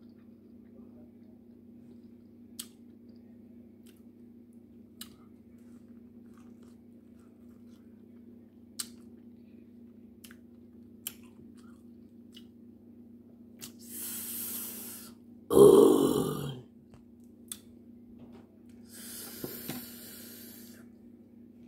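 A person eating seasoned crab-boil corn on the cob: faint mouth clicks and chewing over a steady low hum, then two hissing slurps, with a short, loud throaty sound between them about three-quarters of the way through.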